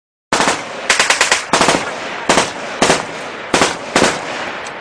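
Automatic gunfire: a long, rapid burst of machine-gun fire that starts about a third of a second in. Louder individual shots stand out over the continuous rattle every half second or so.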